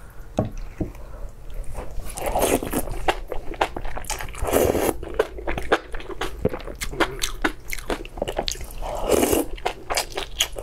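Close-miked eating of malatang noodles and meat: a quick run of wet chewing clicks and mouth smacks, with three longer, louder slurps about two and a half, four and a half and nine seconds in.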